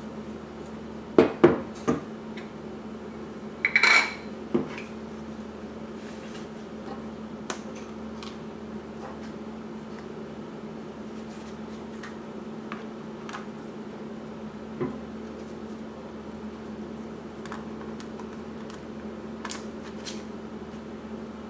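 Clicks and light clatter of a mirrorless camera body, a Panasonic Lumix S5IIX, being handled on a wooden table while its battery compartment is opened and the battery pack is brought in: a cluster of sharp clicks and a brief louder clatter in the first few seconds, then scattered single clicks. A steady low hum runs underneath.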